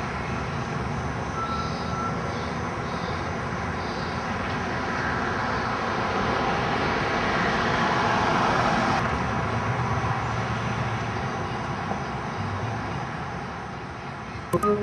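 Steady engine drone that swells to a peak about halfway through, then eases off, with a few sharp clicks near the end.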